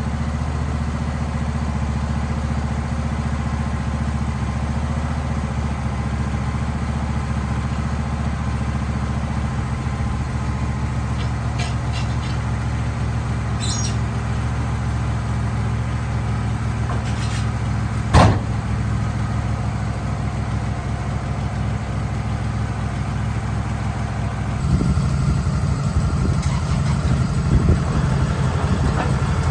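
Engine running steadily, with a single sharp knock about eighteen seconds in; about twenty-five seconds in it gets louder and rougher.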